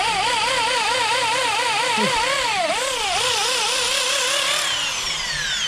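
Hand-held electric drill boring through the cast alloy hub of a motorcycle wheel. The motor's whine wavers up and down about four times a second as the bit bites into the metal, and it winds down in pitch near the end as the hole goes through.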